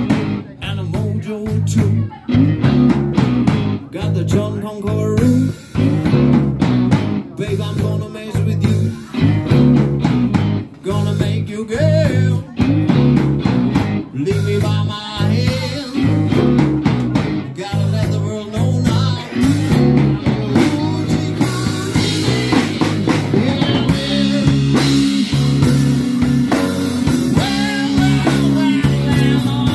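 Live blues band playing an instrumental passage: electric guitar lead lines with bends over bass and drum kit. The riff breaks off briefly every couple of seconds at first; about two-thirds through the band plays straight through with more cymbal.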